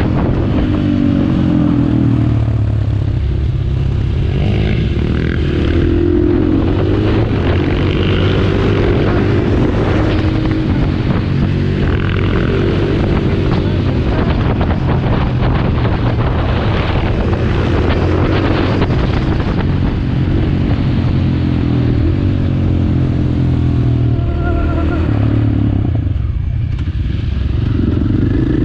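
KTM supermoto motorcycle engine revving up and falling back again and again as it is ridden hard through the gears. The revs drop for a moment near the end and then rise again.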